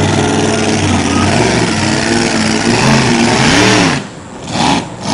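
Blown race-boat engine running hard, its pitch swinging up and down as the revs rise and fall. The sound drops away twice, briefly, near the end.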